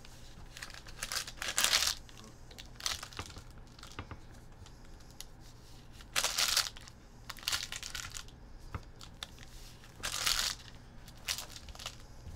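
Foil wrappers of 2019 Donruss baseball card packs being torn open and crinkled by hand, in several short bursts.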